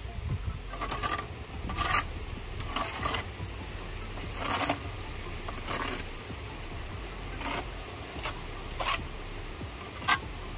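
Steel brick trowel scraping and tapping against freshly laid bricks as excess mortar is cut from the joints: about nine short, sharp strokes spaced irregularly, the sharpest a crisp tap near the end.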